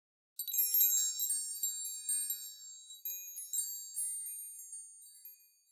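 Small metal door bells jingling: a burst of high, bright ringing tones that starts suddenly, is set jingling again about three seconds in, and dies away near the end.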